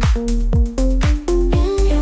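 Electronic dance music with a steady kick drum about twice a second under a held bass line, synth chords coming in near the end; no singing.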